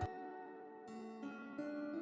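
Calm background music: plucked string notes over held tones, with a new note every half second or so.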